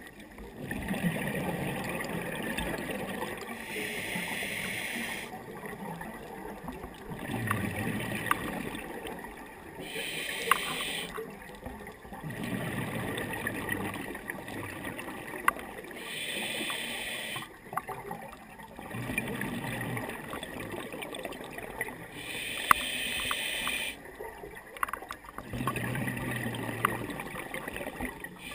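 Scuba diver breathing through a regulator, heard through the camera's underwater housing. Each breath is a short hiss on the inhale, then a longer bubbling rush on the exhale, repeating about every six seconds. A few sharp clicks are scattered through it.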